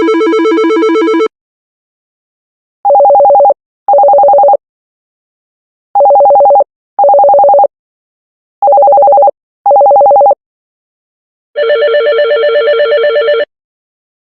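Telephone ringtones, one after another. A ring cuts off about a second in, then comes a ring-ring cadence of short two-pitch warbling tones, heard three times as pairs. Near the end a different, buzzier trilling ring starts.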